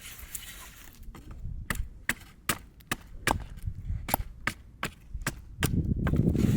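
Repeated sharp wooden chopping knocks, about two or three a second. Near the end a louder low rustling joins in.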